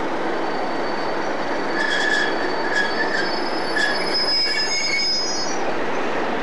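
Train wheels squealing against the rails: several shrill tones come and go, from a little under two seconds in until near the end, over a steady rumble of rail noise.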